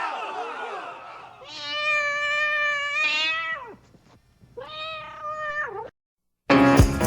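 A cat yowling twice: two long, drawn-out calls, the first about two seconds and the second shorter, each dropping in pitch as it ends. Music starts just before the end.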